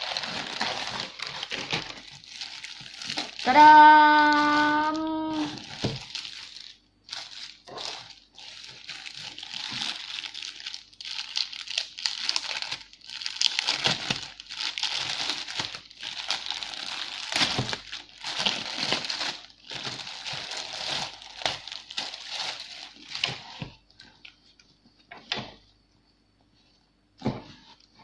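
Plastic packaging crinkling and rustling as a mailer bag and a clear inner plastic bag are handled and pulled open. About three and a half seconds in, one long vocal sound at an even pitch lasts about two seconds and is the loudest thing. Near the end the rustling stops, leaving a couple of short knocks.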